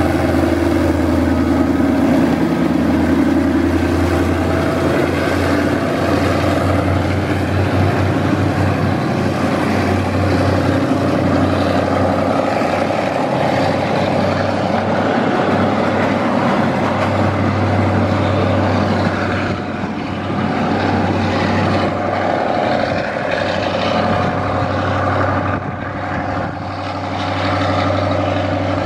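Diesel locomotive engine running with a steady low hum as a passenger train passes, its coaches rumbling over the rails. The noise stays steady, easing a little near the end.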